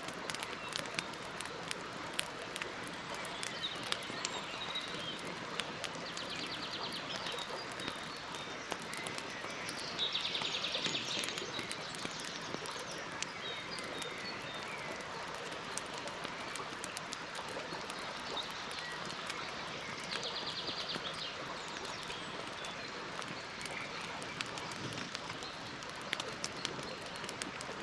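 Campfire crackling, with frequent sharp pops over a steady hiss. A short, rapid, high-pitched trill sounds three times: about six, ten and twenty seconds in.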